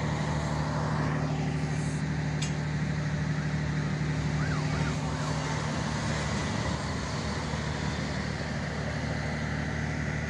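Diesel freight locomotives running as they pass close by: a steady low engine drone over rail and wheel noise.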